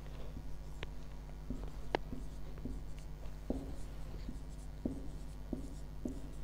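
Marker writing on a whiteboard: faint short strokes and taps as letters and numbers are drawn, over a steady low electrical hum.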